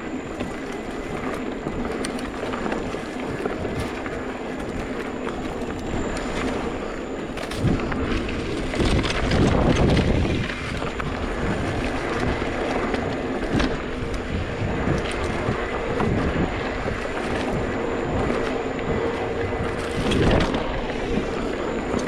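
Mountain bike rolling along a dirt trail: steady tyre and drivetrain noise with the bike rattling and wind on the microphone, swelling louder for a couple of seconds about eight seconds in and briefly again near the end.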